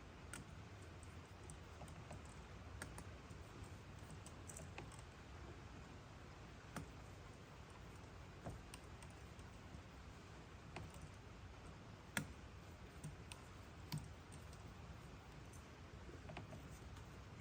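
Faint, irregular metal clicks and taps of a hand tool on the chainring bolts as they are snugged down, one every second or two, with one sharper click about twelve seconds in.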